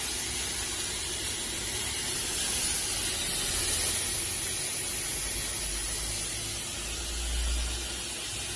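Electric heated disinfection fog machine spraying out fog with a steady hiss.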